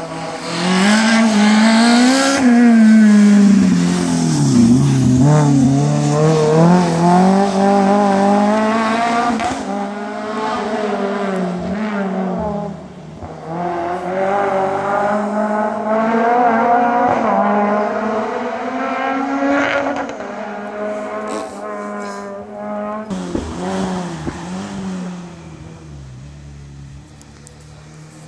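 Rally car engine at full throttle as the car passes along a tarmac special stage, revving up through the gears in repeated rising pitches that drop at each shift. It fades into the distance over the last few seconds.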